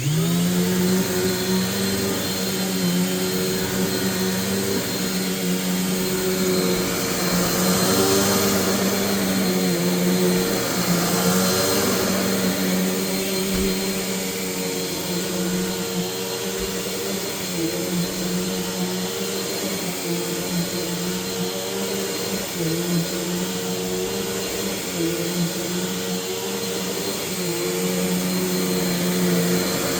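Bissell PowerForce bagless 6582 upright vacuum cleaner switching on, its motor spinning up with a quick rise in pitch, then running steadily while vacuuming, with the whine dipping slightly now and then as the load changes.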